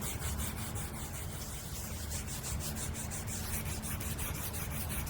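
Hand sanding in quick, even back-and-forth strokes, about five a second, steady throughout: surface preparation of the part being restored.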